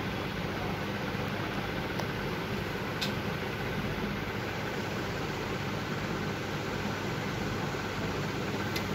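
Steady mechanical hum and hiss of running machinery, with a few faint clicks about two and three seconds in and again near the end.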